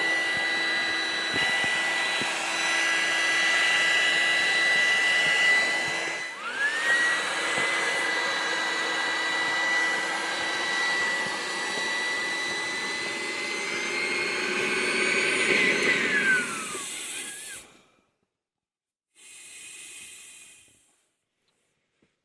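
A motor-driven blower running with a steady hiss and a high whine. The whine dips and recovers about six seconds in, then falls steeply as the blower stops near the end.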